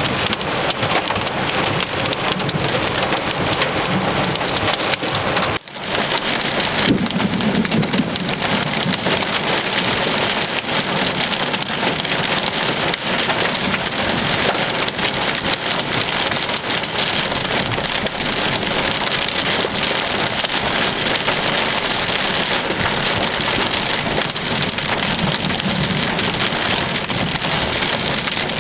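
Heavy rain falling steadily in a dense, even hiss, breaking off for a moment about five and a half seconds in.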